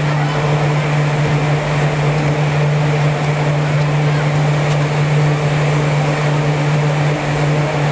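Steady drone of the blowers that keep an air-supported sports dome inflated, a strong low hum with fainter steady tones above it, unbroken throughout.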